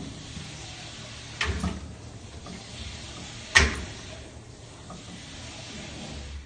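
Metal wire upper rack of a dishwasher being pawed and shoved by a cat, rattling and clunking on its rails: a couple of knocks about a second and a half in, then a louder single clunk about three and a half seconds in.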